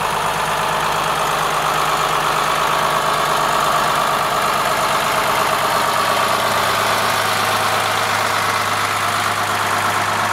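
New Holland TM140 tractor's diesel engine idling steadily.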